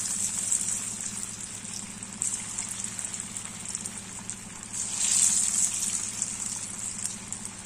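Marinated cauliflower florets deep-frying in hot oil in a kadai: a steady sizzle that swells louder about two and five seconds in, as more pieces are dropped into the oil.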